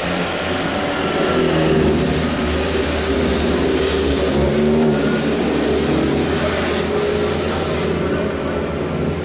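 Chevrolet Cruze touring race car's engine running at low speed as the car rolls down the pit lane, drawing nearer. A steady high hiss runs for several seconds in the middle.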